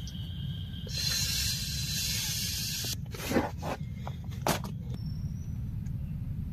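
Air hissing through the valve of a sleeping pad for about two seconds, cutting off suddenly, then rustling and scraping as the pad is laid on a plastic groundsheet.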